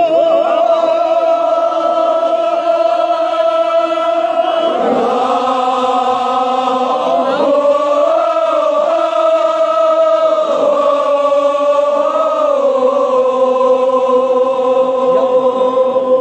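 Men's voices chanting a Kashmiri noha mourning lament together in long, drawn-out held notes, the pitch shifting about five seconds in and wavering slowly after.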